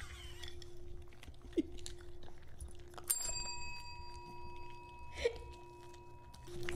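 A small desk service bell is struck once about three seconds in and rings on for a few seconds, fading. Under it, small dogs crunch and chew hard homemade treats.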